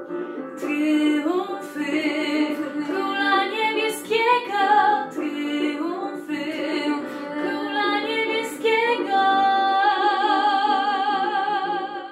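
A young woman's voice singing a Polish Christmas carol over a sustained instrumental backing, ending on one long held note with vibrato near the end.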